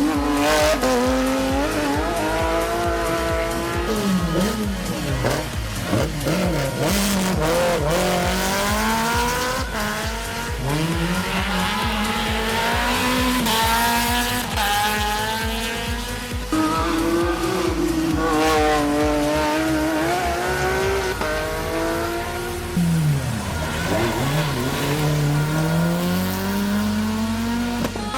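Rally car engines at full throttle on a stage, pitch climbing and dropping again and again through gear changes and lifts for corners. The engine sound changes abruptly a couple of times as one car gives way to another.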